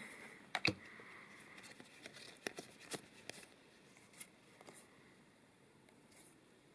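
Magic: The Gathering trading cards being handled: scattered light clicks and soft rustling, busier in the first half and thinning out toward the end.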